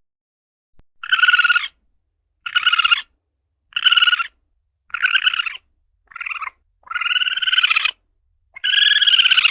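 Asian palm civet (luwak) calling: a run of about six short pitched calls, one roughly every second, each half a second to a second long, the last one longest.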